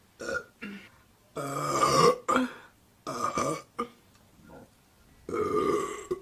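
A woman burping repeatedly: a string of short burps, with two longer ones about a second and a half in and near the end.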